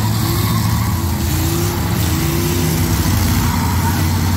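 Demolition derby cars' engines running and revving, a loud steady rumble with revs rising and falling.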